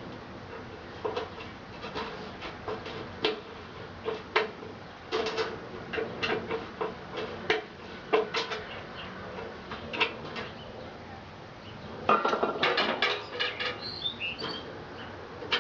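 Irregular metallic clinks and taps of hard parts being handled, over a faint steady hum. About twelve seconds in comes a denser clatter, followed by a few short high chirps.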